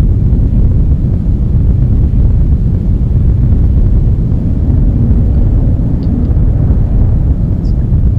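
Loud, steady deep rumbling drone of an ambient soundtrack, with no beat or melody.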